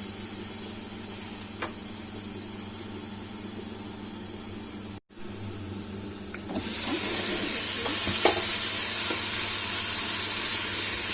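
Green beans and mushrooms sizzling and steaming in a covered frying pan after a splash of water. There is a brief dropout about five seconds in, and the sizzling is louder from just after it.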